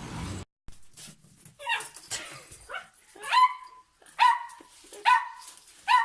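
A dog yipping and whining: a run of short high cries, each sliding down in pitch, roughly one a second.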